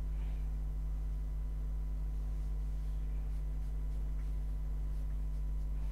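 Steady low electrical hum at mains frequency with fainter evenly spaced overtones above it, unchanging throughout; nothing else stands out.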